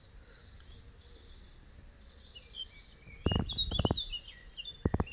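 Small birds chirping and twittering in short high notes. A quick run of close, sharp clicks comes about three seconds in, and a couple more near the end.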